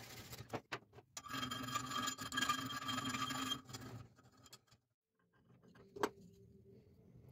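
Small round needle file rasping on a steel knife blank clamped in a bench vise, a dense scrape with a ringing note for about two and a half seconds before it stops. A single sharp knock about six seconds in.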